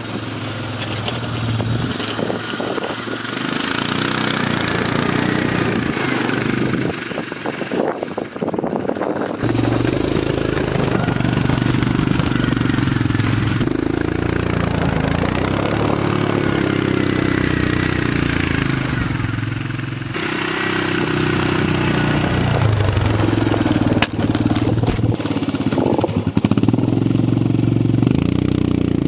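ATV engine with a front snow plow blade, running steadily with its pitch shifting up and down as it revs while moving snow.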